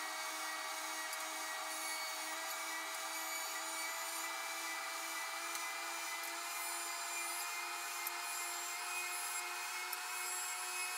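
The surface planer of a combination planer-thicknesser running steadily with a constant whine, planing wood fed across its bed.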